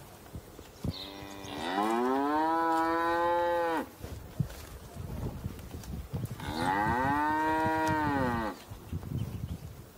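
Cattle mooing: two long moos, the second about five seconds after the first, each rising in pitch, held, then sliding down at the end.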